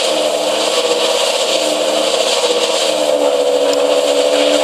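Porsche Carrera GT's 5.7-litre V10 idling steadily at the exhaust, its pitch holding nearly level with only a slight dip and recovery about halfway through.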